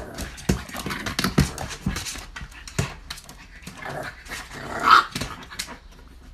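Bulldog puppy panting and snuffling while its claws scrabble and knock against a plastic storage box, with a short whine about five seconds in, the loudest sound.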